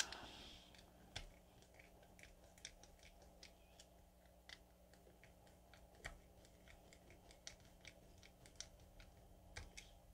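Faint, irregular small clicks and ticks from a small Phillips screwdriver driving two tiny screws through a circuit board into a 3D-printed plastic block.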